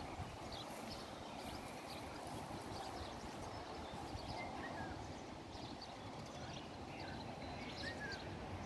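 Swallows giving scattered short, high twittering chirps as they hawk low over the water, over a steady background hiss.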